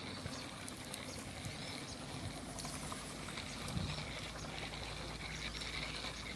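Outdoor swamp ambience with wild birds chirping throughout, and a single soft knock a little past the middle.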